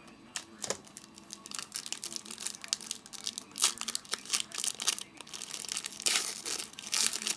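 Trading card pack wrapper being torn open and crinkled in the hands: a dense run of sharp crackles, loudest about three and a half seconds in and again around six to seven seconds.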